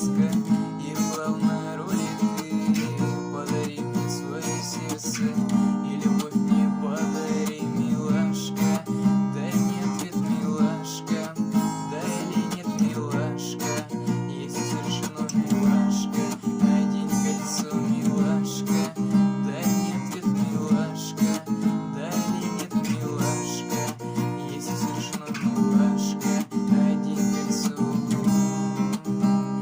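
Acoustic guitar being strummed, playing a song's chords.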